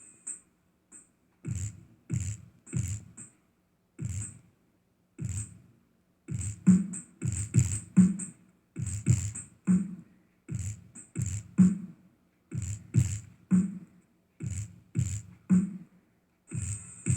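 Bass-heavy beat played through a speaker woofer: deep thumps in an uneven rhythm, each with a sharp click on top, starting about a second and a half in.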